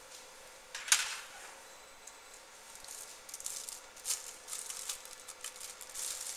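CO2 laser marking a blue plastic case, making irregular high-pitched crackling and hissing as the beam burns marks into the plastic, strongest from about three seconds in. A single sharp click comes about a second in.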